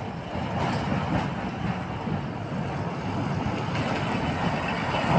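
A motor vehicle's engine running nearby, a steady low rumble.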